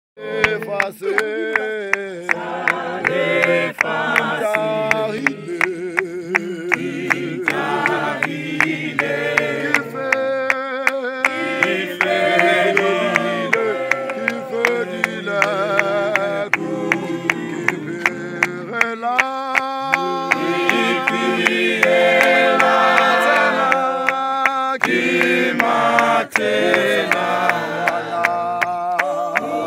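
Choir singing a cappella in several-part harmony, with sharp hand claps keeping the beat about twice a second.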